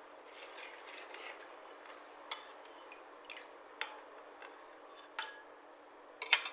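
A few light clinks of a utensil against a glass, about four of them spread over several seconds, over a faint steady hiss.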